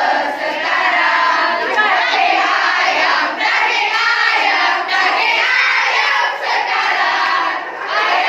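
A group of excited teenage girls cheering, shouting and laughing together, many voices overlapping without a break.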